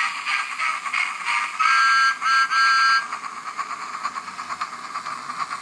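Steam-train sound effect: rhythmic chuffing, broken by three whistle toots near the middle, the last the longest.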